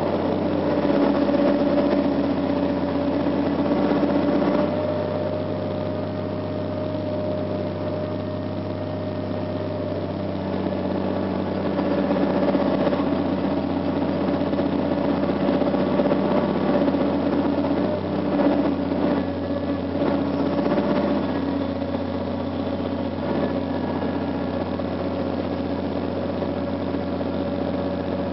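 Cat 345CL hydraulic excavator's diesel engine running under load while digging, heard from inside the cab, with a steady whine over the engine note. The engine swells and eases as the boom and bucket are worked, and a few knocks come about two-thirds of the way in.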